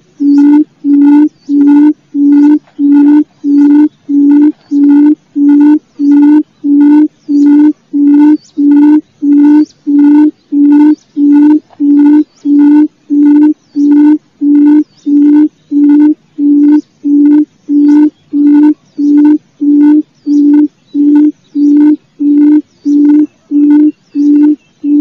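Forest quail (puyuh hutan) lure call: a short low hooting note repeated evenly, nearly two a second without a break. It is the challenge call used to draw rival birds in to fight.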